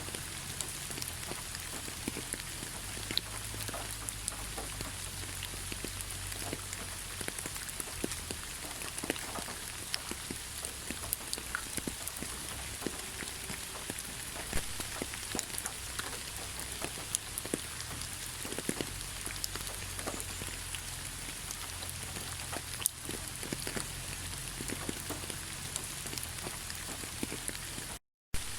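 Heavy rain falling: a steady hiss dotted with many separate sharp drop ticks, over a low rumble. The sound cuts out completely for a split second near the end.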